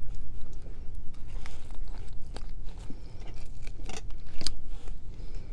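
Crisp romaine lettuce leaves crackling and crinkling as they are folded by hand into a wrap, in scattered sharp crackles.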